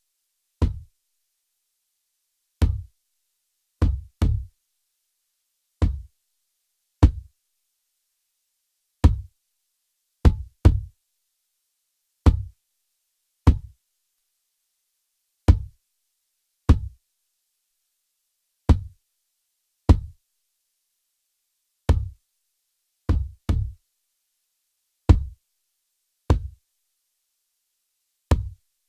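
Recorded kick drum, a blend of kick-in and kick-out mics, run through a Lindell 7X-500 1176-style compressor set for heavy compression. It plays a sparse pattern of single hits about one every one to two seconds, with three quick double hits, each short with a fast decay.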